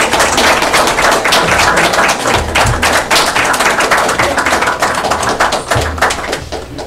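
Congregation applauding: many hands clapping in a dense, steady patter that thins out near the end.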